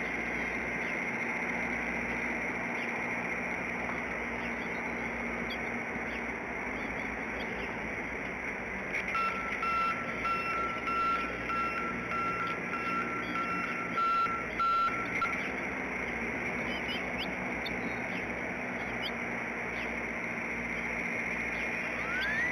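A distant vehicle's reversing beeper sounds a string of even beeps for about six seconds, starting about nine seconds in, over a steady outdoor background with faint bird chirps.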